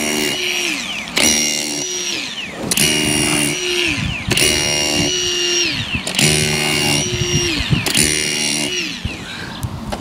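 Handheld power tool motor, run in six short bursts about every second and a half. Each burst holds a steady whine, then winds down in pitch as the trigger is let go.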